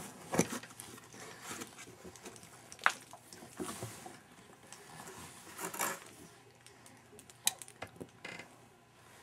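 Scattered light knocks and rustles of a cardboard box and a soft blanket as a baby shifts about inside the box, with a few sharper taps, the sharpest about three seconds in.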